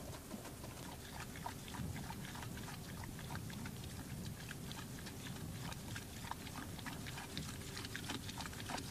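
Field sound of a mare being milked by hand: low breathing and shifting from the horse, with many faint, irregular clicks and scuffs.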